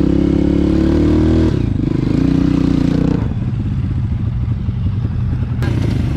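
Honda CRF230 dirt bike's single-cylinder four-stroke engine running on the throttle, its pitch stepping down about a second and a half in, then dropping about three seconds in to a lower, uneven running as the throttle comes off.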